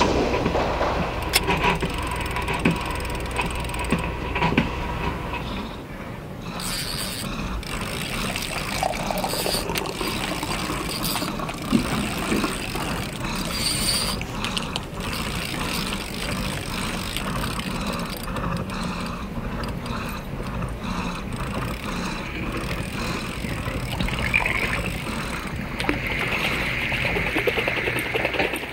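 Dense, steady mechanical clattering, full of rapid clicks and ticks, brightening in the last few seconds.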